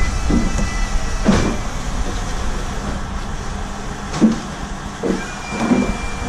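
Steady low machinery rumble of a boat's boom hoist lifting stacked crab crates, with a thin whine near the start and again near the end. Several knocks of the crates, two of them sharper than the rest.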